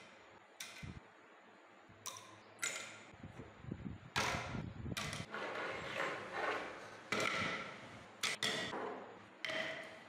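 Rusty iron lock parts clinking and knocking against a glass baking dish as they are dropped into a liquid bath, a dozen or so sharp knocks, several with a short ringing tone from the glass, coming thicker in the middle.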